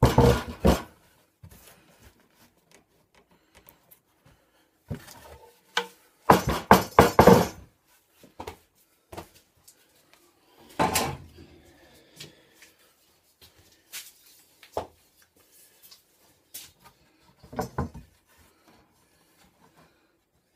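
Scattered knocks, clatter and scraping from a heavy reclaimed-wood plank and hand tools being handled on a workbench, with a quick run of knocks about six seconds in and single bumps later on.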